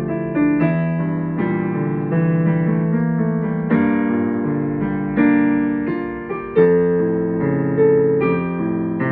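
Solo piano playing a slow piece: chords are struck and left to ring, with a new chord or note about every second.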